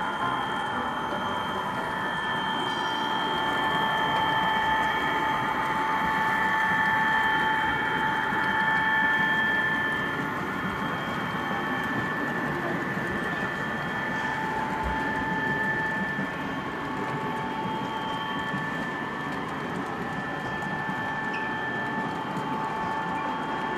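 HO scale model train running along the track: a steady whine from the model diesel locomotives' electric motors and gears over the rattle of wheels on rail, a little quieter after about ten seconds.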